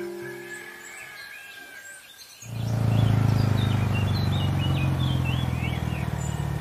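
Background music dies away while birds chirp. About two and a half seconds in, the steady low hum of a motorcycle engine comes in and keeps running as the bike rides slowly up.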